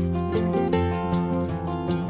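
Background music led by a plucked string instrument, notes changing over a steady low bass.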